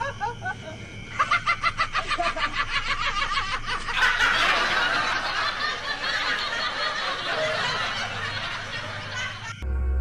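Laughter in a fast run of short, evenly spaced ha-ha pulses, then a louder, denser din of laughing and noise that cuts off suddenly near the end. A low steady hum runs underneath.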